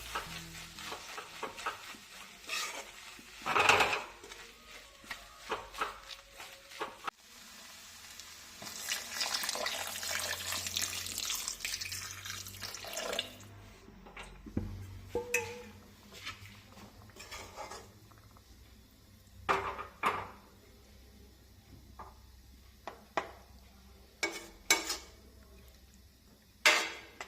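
Kitchen utensils clinking and knocking against pots and pans in scattered strikes, with a few seconds of steady hiss in the middle.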